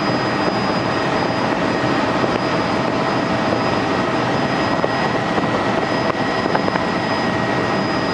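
Helicopter in flight, heard from inside the cabin: a loud, steady, dense engine and rotor noise with a thin high whine running through it.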